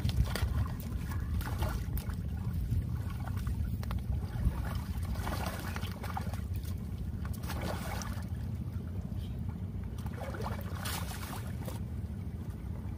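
Splashing and sloshing in shallow water, in several short irregular bursts, as a Komodo dragon tears at a large fish, over a steady low rumble of wind on the microphone.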